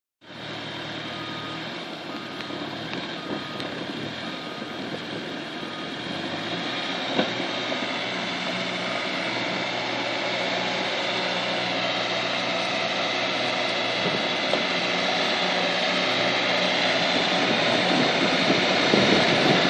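Bobcat S650 skid steer's diesel engine running steadily and growing gradually louder, with a backup alarm beeping about once a second during the first several seconds.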